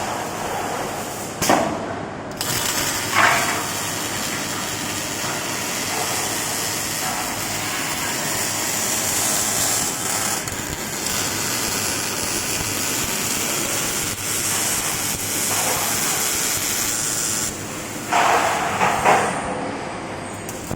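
Automatic beam welding machine running: the welding gives a steady loud hiss and crackle, with a few short louder bursts about a second and a half in, about three seconds in, and again near the end.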